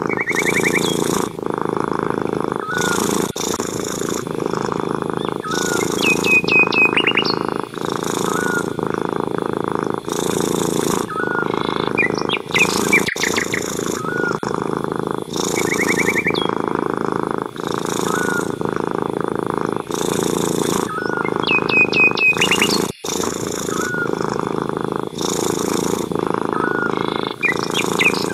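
Domestic cat purring steadily and loudly, close up, with a brief break at each breath. Small birds chirp in the background, and a short trill comes back every five seconds or so.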